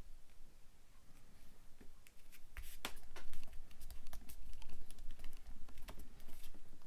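Hands handling paper and pressing a small paper piece down onto a card on a cutting mat: scattered light taps and clicks, busier and louder from about two and a half seconds in.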